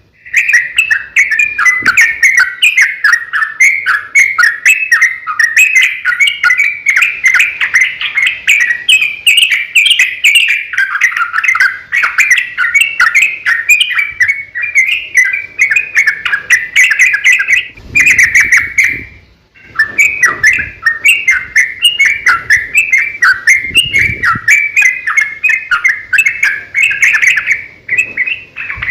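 Yellow-vented bulbul singing in a long, rapid run of chattering, bubbly phrases, loud and nearly unbroken, with a short pause about two-thirds of the way through.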